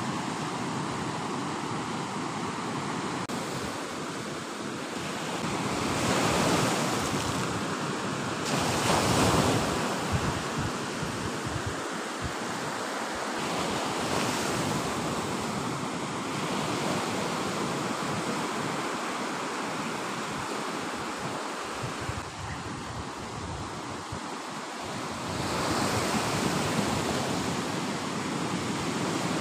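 Ocean surf breaking on the shore, a steady wash that swells louder as waves come in, most around a third of the way through and again near the end, with wind buffeting the microphone.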